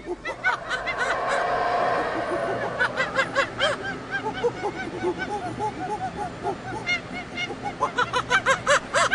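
A flock of birds calling at once: many short calls, each rising and falling in pitch, overlapping thickly, with a busier stretch near the end.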